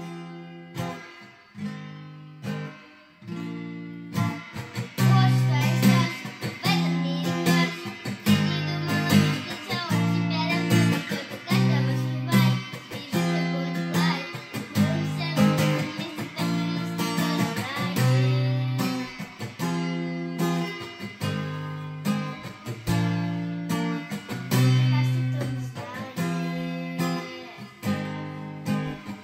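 Acoustic guitar strummed in a steady rhythm of changing chords, soft at first and fuller and louder from about four seconds in.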